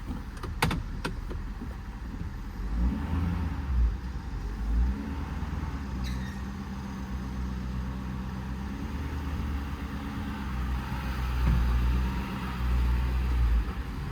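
Road traffic passing by, vehicle engines and tyres rumbling as they go by, swelling and fading, heard from inside a truck cab. A few sharp clicks just under a second in.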